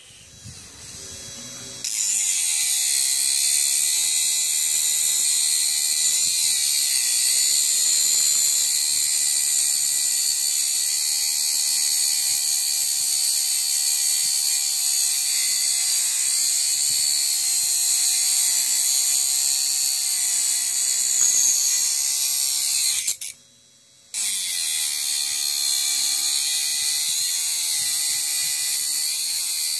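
Homemade mini grinder, a 12-volt DC motor with a small cutting disc, cutting into a hardened concrete nail: a steady high-pitched abrasive grinding hiss over the motor's whine. It starts about two seconds in, breaks off for about a second roughly three-quarters of the way through, then resumes.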